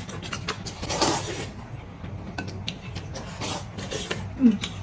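Eating sounds at a table: scattered small clicks of chopsticks and tableware against dishes, with two short rustling bursts about one second and three and a half seconds in.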